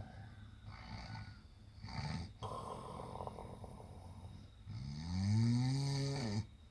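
A sleeping man snoring: a couple of shorter rasping breaths, then, from about five seconds in, one long loud snore with a buzzing pitch that rises and then falls before cutting off.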